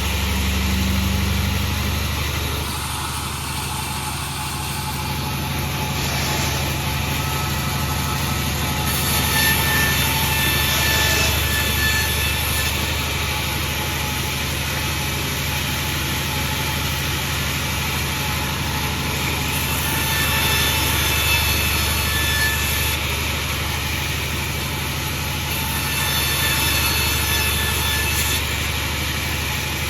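Sawmill machinery running steadily: a constant low engine drone with a hiss above it, swelling slightly a few times.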